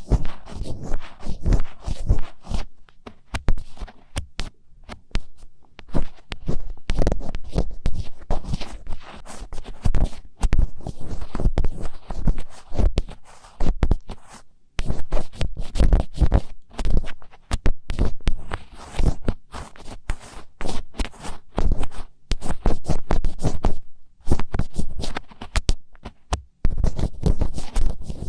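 Close-miked ASMR scratching: rapid, dense scraping and clicking right on the microphone, with dull low thumps mixed in.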